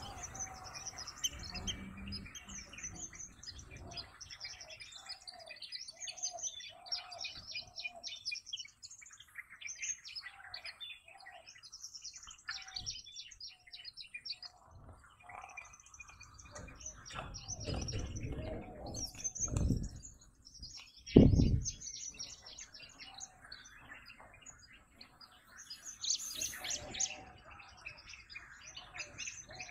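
Many wild birds chirping and calling, with a lower call repeated several times about a quarter of the way in. A short, loud low thump comes about two-thirds of the way through.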